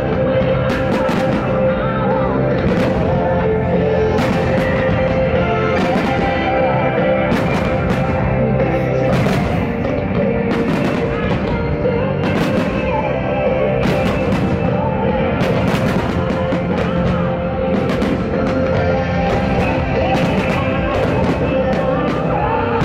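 Rock music playing loudly and continuously as the soundtrack of a fireworks show, with many firework bangs going off irregularly over it.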